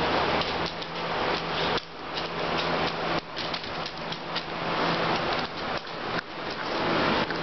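Two dogs scuffling over a plush toy on a hardwood floor: irregular clicks and knocks of paws and bodies, over a steady low hum.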